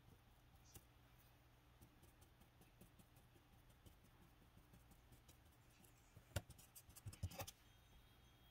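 Near silence: quiet room tone, with a few faint clicks and light knocks bunched together about six to seven seconds in.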